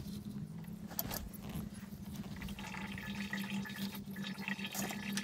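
Water sloshing and trickling in a plastic filter barrel as stones are set down into it, with a couple of light knocks about a second in, over a steady low hum.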